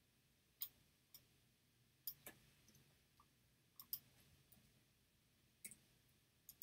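Faint, sharp clicks of a computer mouse, about eight in all with pauses between, some coming in quick pairs, over near-silent room tone.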